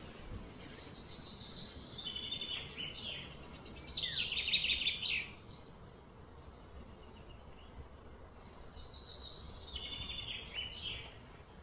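A bird singing: a run of rapid high chirps about two to five seconds in, then a softer, shorter run near the end, over steady low outdoor background noise.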